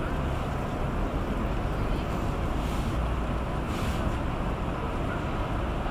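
Steady low rumble of wind on the microphone over general city background noise, with a few faint soft hisses.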